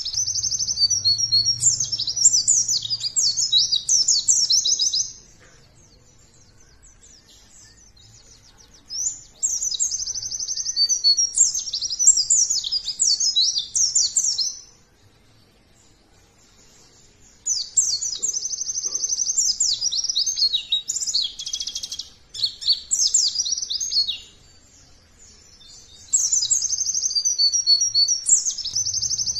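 White-eye (pleci) song: rapid, high twittering in four bouts of about five seconds each, separated by short pauses. It is a lure song, played to set caged white-eyes singing.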